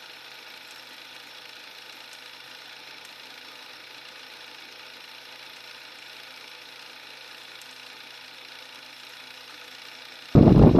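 A faint, steady mechanical hum, then near the end loud wind rush and motorcycle running noise on a camera mounted on a moving motorcycle cut in suddenly.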